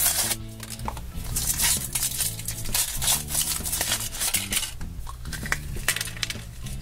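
A cardboard box being opened, a foil wrapper crinkling off a chocolate egg and the chocolate shell cracking open: a run of crackles, rustles and clicks over steady background music.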